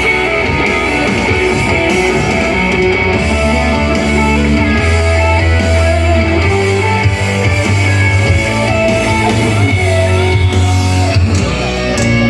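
Rock band playing an instrumental passage: guitar over bass and drums, with no singing.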